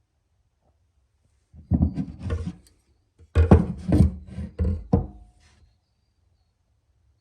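Knocking and rubbing of objects being handled on a hard work surface, in two short bursts about a second apart, the second with several distinct knocks.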